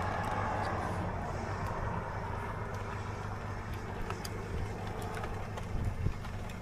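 Steady vehicle road noise with a low engine drone, and scattered sharp ticks over it.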